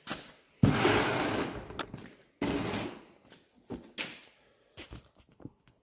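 A digital angle finder's stainless steel rules scraping against the steel tube of a trailer tongue and frame as the tool is laid in place. There are two sudden scrapes, one under a second in and one about two and a half seconds in, each fading over a second or so, then a few light clicks and taps.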